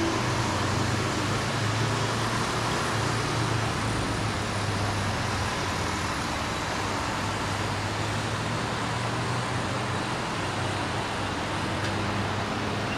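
Steady hum of distant road traffic, an even wash of noise with a low drone underneath.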